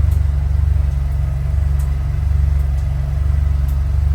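Tuned Volkswagen Jetta GLI engine idling steadily with a deep low rumble, with a few faint light ticks now and then.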